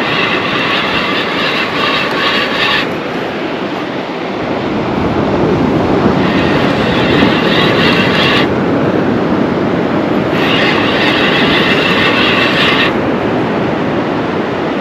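Penn spinning reel being cranked in three bursts of two to three seconds each, a whirring gear whine while line is wound in against a heavy fish. Surf and wind hiss underneath throughout.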